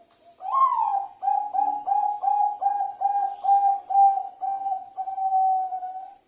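Zebra dove (perkutut, Bangkok song type) cooing: a rising opening note, then a quick run of a dozen or so short coos, ending in one longer held coo. Crickets chirp steadily behind it.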